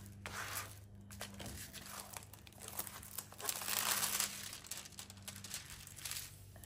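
Crinkling of a diamond painting canvas's clear plastic cover film as it is handled and flattened by hand, in several irregular rustles, the loudest a little past halfway.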